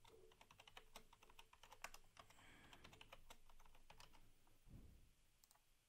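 Faint typing on a computer keyboard: a quick run of keystrokes that stops about four and a half seconds in.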